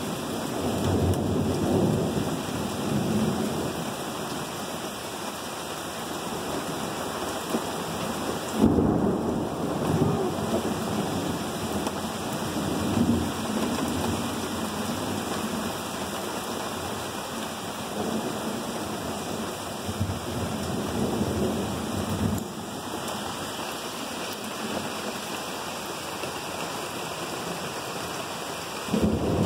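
Thunderstorm heard from inside a camper: steady heavy rain on and around the camper, with low rolling thunder swelling several times. The loudest is a sudden clap about nine seconds in, and another rumble builds near the end.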